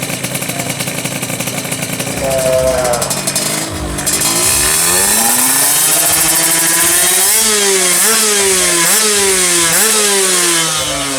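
Four-stroke underbone drag-race motorcycle engine, running at first with one short blip, then revved hard: the pitch climbs steadily, then rises and falls again and again at high revs.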